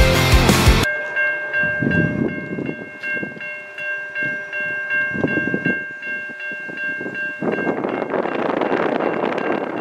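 A rock music track cuts off about a second in. A steady chord of several tones, typical of a locomotive air horn, then holds for about six seconds over gusty wind, and near the end gives way to a louder, even rushing noise.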